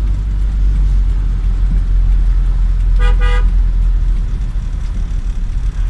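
Steady low rumble of a car's engine and road noise heard from inside the cabin, with a car horn giving two short toots about three seconds in.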